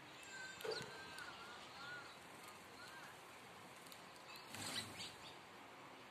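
House sparrows chirping faintly at a feeding spot, with a faint wavering whistled note over the first few seconds. Past the middle comes a brief flurry of wingbeats as the flock flies off.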